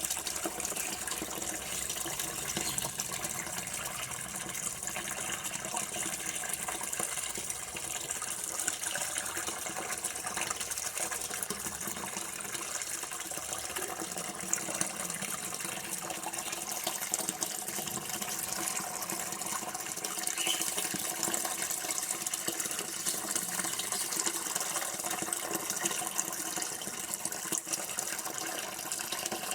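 Running water pouring steadily, an even, unbroken rush like a tap left running.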